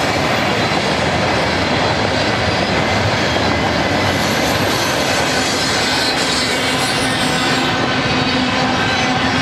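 Freight train rolling past, mixed freight cars followed by double-stack container well cars: a steady, continuous noise of steel wheels running on rail.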